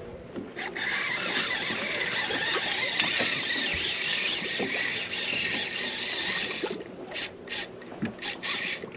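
Fishing reel's drag paying out line as a bull shark runs with the hooked fish: a steady high buzz for about six seconds, then several short spurts near the end.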